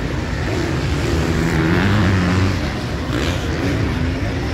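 Motocross bike engines racing and revving, with one bike getting louder and rising in pitch about two seconds in before easing off.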